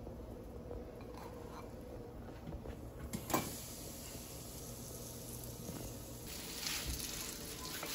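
Breaded squirrel meat frying in a pan, the sizzle growing louder about six seconds in, over a steady low hum. A single sharp knock about three seconds in.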